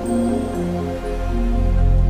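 Instrumental music: held melodic notes changing about every half second over a deep bass.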